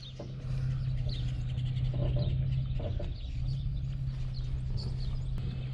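Boat motor running with a steady low hum, with short high bird chirps scattered over it.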